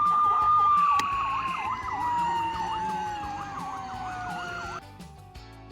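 Fire-truck siren wailing and slowly winding down in pitch, then cutting off about five seconds in.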